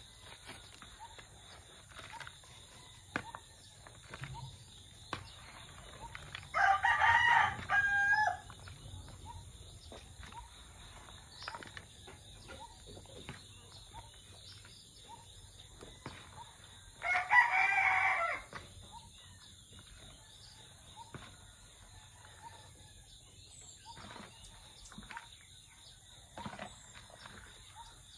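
A rooster crowing twice, about ten seconds apart, each crow under two seconds long.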